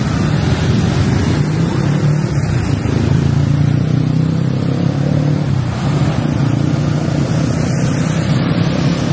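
Close city traffic, with motorcycle and car engines running alongside, under a steady rush of wind on the microphone from riding.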